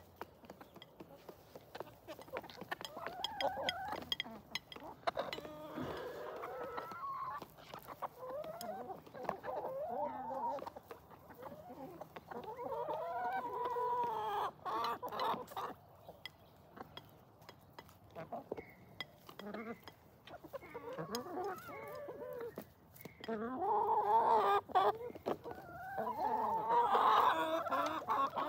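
A flock of hens feeding, clucking and giving drawn-out, wavering calls, with many quick sharp taps of beaks pecking at the feed. The calling gets louder and busier near the end.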